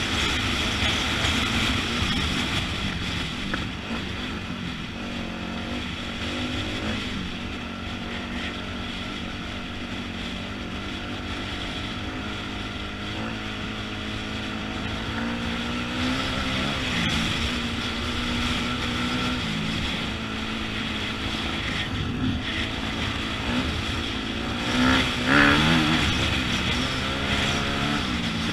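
Dirt bike engine heard from on board while riding a grassy trail, its pitch rising and falling as the throttle is worked, with a brief louder rev near the end.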